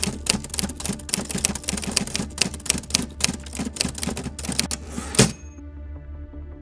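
Typewriter keys clacking rapidly for about five seconds, ending in one heavier strike with a short high ring. Quiet music then begins.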